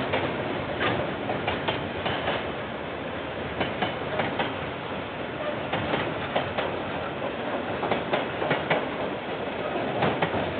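KiwiRail train rolling past: a steady rumble with frequent, irregular clicks and clacks from the wheels on the track.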